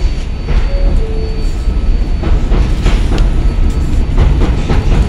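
Stainless-steel New York City subway train sounding its two-tone door-closing chime, falling in pitch, about half a second in. It then pulls out of the station with a loud low rumble and a run of wheel clacks over the rail joints.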